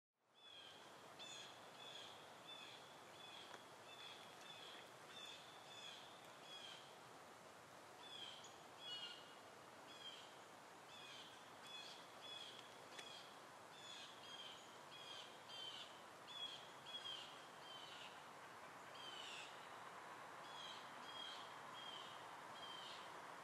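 Faint outdoor hiss with a small bird calling over and over, short chirps repeated about once or twice a second with brief gaps.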